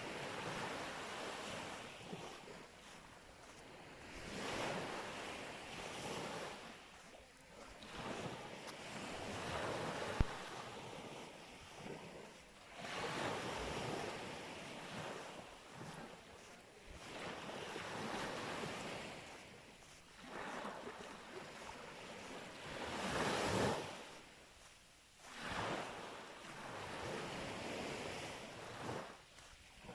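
Sea waves breaking and washing up the beach, swelling and fading every few seconds, with wind buffeting the microphone. A single sharp click about ten seconds in.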